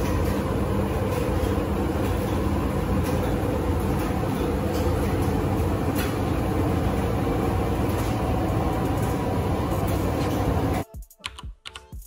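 Steady loud rumble and hiss that cuts off abruptly about eleven seconds in, giving way to faint music.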